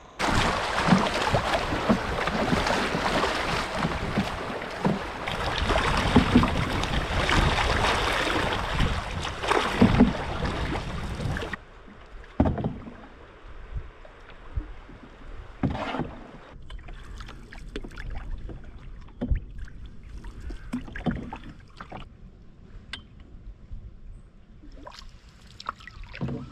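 Canoe being paddled on a river: a loud, steady rushing noise with a few knocks for about the first eleven seconds, then it cuts abruptly to a quieter stretch of separate paddle strokes, a short splash or knock every few seconds.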